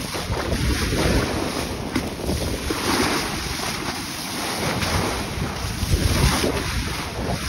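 Water rushing and splashing along a sailing yacht's hull as it moves through the sea, with wind buffeting the microphone. The rush swells louder a couple of times, about three and six seconds in.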